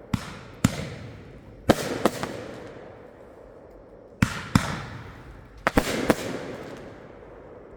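Consumer aerial fireworks going off: a series of sharp bangs, several in quick pairs a fraction of a second apart, each fading out in a rolling echo. The bangs come in clusters with short gaps between, and it goes quieter near the end.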